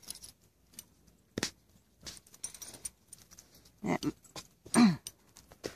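Belgian Malinois puppy giving two short yelps, each falling in pitch, about four and five seconds in, among faint scattered clicks.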